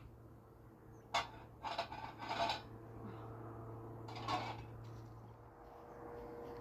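A sharp knock about a second in, then about a second of clattering and scraping, like household utensils or pots being handled, and one more brief scrape near the middle, over a steady low hum.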